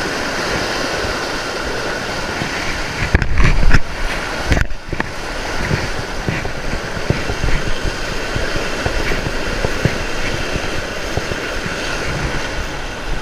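Fast, turbulent stream water rushing steadily through a concrete culvert, with a few louder low thumps about three to four seconds in.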